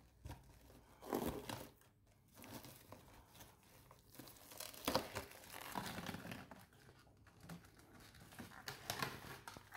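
Clear plastic bag crinkling and rustling in irregular handfuls as a whole ham is worked out of it and its mesh net, with a few louder crackles.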